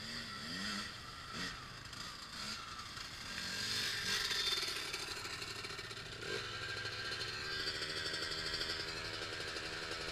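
Off-road engines from dirt bikes and an ATV, heard from a distance: a few short revs in the first couple of seconds, then the engine running at a steadier pitch from about six seconds in.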